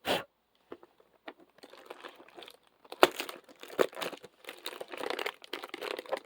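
Plastic and paper packaging crinkling and tearing as a small fidget toy is unwrapped by hand. It starts with a short sharp crackle, goes sparse for a moment, then turns into dense, irregular rustling and tearing from about halfway through.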